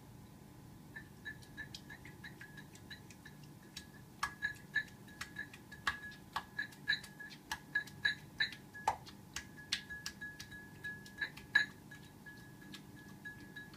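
Calico cat scooping water out of a plastic water bowl with her paw: a rapid, irregular run of light clicks and clinks, each with a faint ringing tone. The clicks grow quicker and louder after a few seconds.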